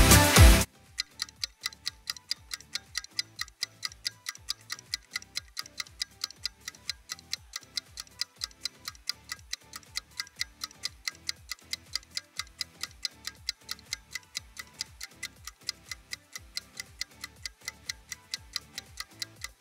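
Dance music cuts off under a second in, giving way to a steady clock-like ticking, about four ticks a second: a countdown-timer tick marking the rest period between exercises.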